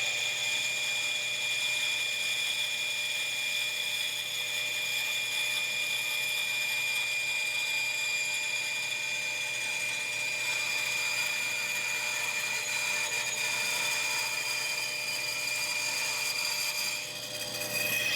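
Woodworking power tool running steadily with a high-pitched whine.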